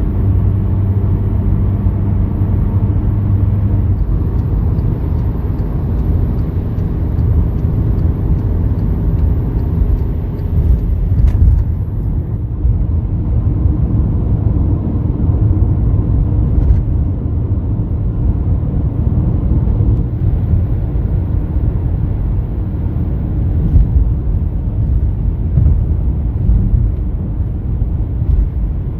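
Steady low rumble of a motor vehicle under way, with engine and road noise. A pitched engine drone is heard at the start and fades within the first few seconds.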